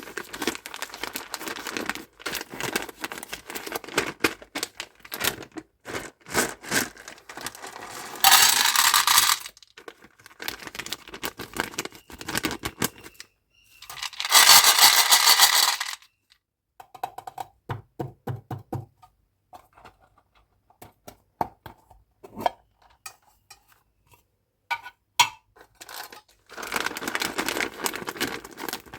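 Plastic candy wrappers crinkling and tearing open, with small hard-shelled candies clicking and clattering as they drop. Two louder rustling bursts of a second or two come about eight and fourteen seconds in.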